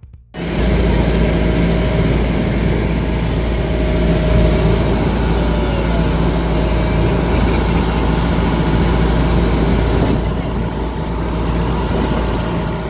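Small wooden passenger boat's engine running steadily under way, a loud low drone with a steady hum, over water rushing along the hull. It cuts in suddenly about half a second in and fades near the end.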